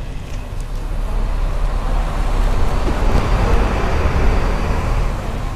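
A road vehicle passing close by: traffic noise over a steady low rumble swells to a peak about three to four seconds in, then fades.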